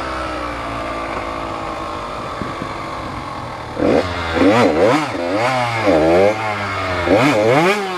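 Off-road motorcycle engine running, its pitch sinking slowly for the first few seconds, then revved up and down again and again in quick surges from about halfway in.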